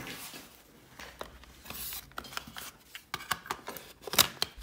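Hands handling a Sony Walkman cassette player: plastic rubbing and a series of sharp clicks as its cassette door is opened and a tape is loaded, the loudest clicks near the end.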